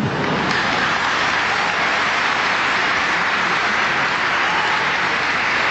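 Large audience applauding, steady and unbroken.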